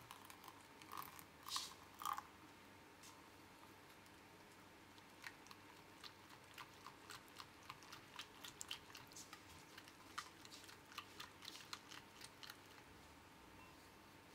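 Balloon whisk stirring a thin egg-yolk, oil and coffee mixture in a glass bowl, its silicone-coated wires ticking lightly and irregularly against the glass. A few louder knocks come between one and two seconds in. Faint overall.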